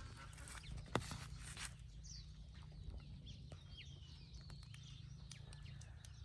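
Faint chickens clucking and calling, with a sharp click about a second in, over a steady low rumble.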